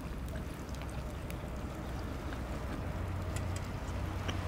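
A steady low rumble of outdoor background noise with scattered faint crackles and clicks.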